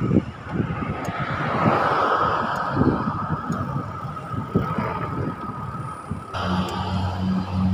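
Wind and road-traffic noise heard from a moving bicycle, with low buffeting thumps. About six seconds in, the sound cuts abruptly to a low, evenly pulsing hum.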